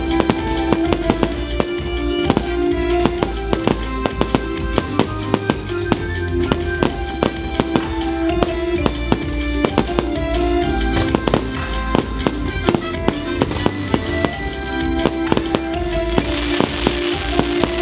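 Fireworks bursting overhead in rapid, irregular bangs and pops, over music. Near the end a sizzling crackle joins in as crackling-star effects burst.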